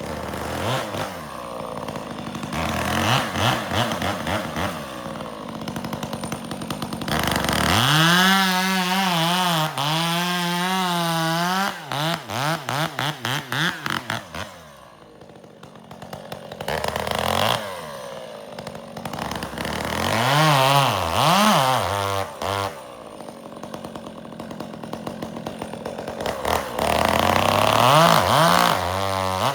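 Gas chainsaw bucking firewood: the engine revs up and down as it cuts, drops back to a low idle about halfway through, then revs up again for more cuts.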